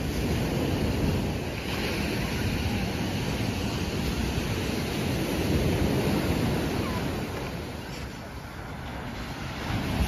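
Black Sea surf breaking on the shore in a steady rush, mixed with wind buffeting the microphone. It eases a little near the end.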